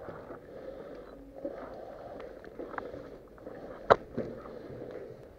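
A player moving through a building on foot, with footsteps and gear rustling, scattered light clicks, and one sharp crack about four seconds in.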